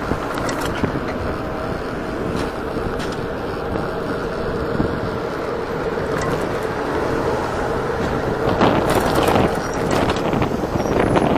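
Wind noise buffeting the microphone over a steady rush of road noise while riding a Kaabo Wolf Warrior 11 dual-motor electric scooter, with louder gusts near the end.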